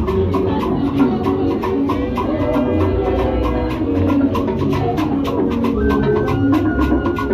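Music with a steady, even beat: crisp high percussion strokes over bass and melodic lines.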